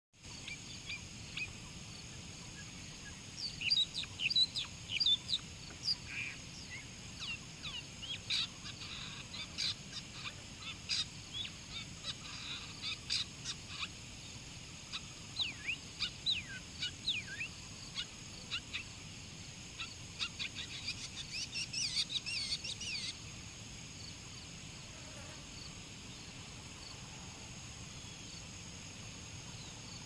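Long-tailed shrike (cendet) giving a varied chatter of short, quick, sweeping chirps, densest near the middle, which cuts off suddenly about three quarters of the way through. A faint steady high hiss runs underneath.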